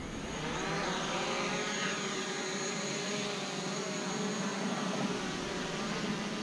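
DJI Mavic quadcopter's propellers whining as it lifts off the grass and climbs, a steady buzzing drone whose pitch slides up and down as it rises, growing louder about half a second in.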